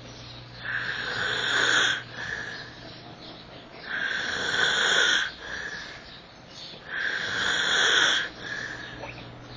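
A sleeping man snoring heavily: three long snores about three seconds apart, each followed by a short, quieter one.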